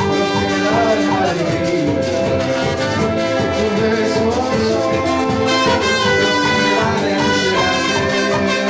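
Latin tropical dance music with a brass section playing held chords over a steady percussion beat.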